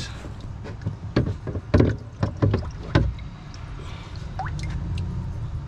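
A quick run of irregular knocks and thumps, about five in the first three seconds, like something being bumped and handled, then a steady low rumble near the end.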